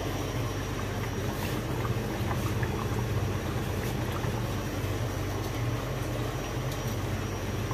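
A pot of mutton korma simmering over a gas stove burner: a steady hiss with a low hum underneath.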